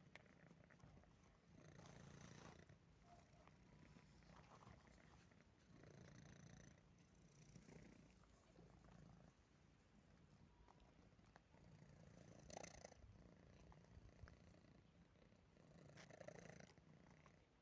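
Domestic cat purring quietly, the purr swelling and fading with each breath every couple of seconds.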